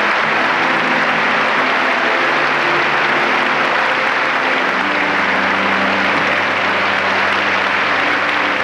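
Large audience giving a standing ovation: dense, steady applause, with low sustained notes running underneath.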